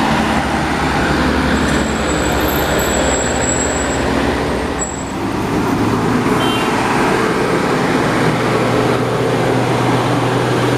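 Truck engines and road traffic: a light truck drives past in the first half, and after a brief dip in loudness about halfway a steady low engine drone goes on.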